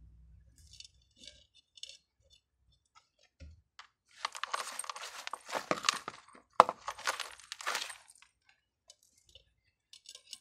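Gritty potting mix of soil, perlite and volcanic stone being scooped with a plastic hand trowel. A few small clicks, then two spells of crunchy rattling about four and six-and-a-half seconds in, with a sharp knock where the second begins.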